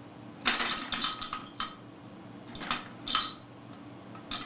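Plastic rattle toy on a baby activity seat being shaken in short, sharp clattering bursts, about seven in all.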